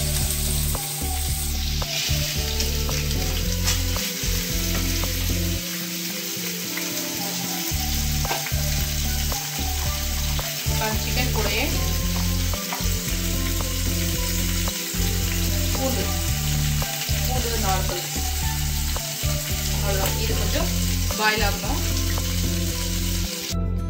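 Chicken drumsticks frying in a little oil in a stainless steel pan, a steady sizzle that picks up about two seconds in.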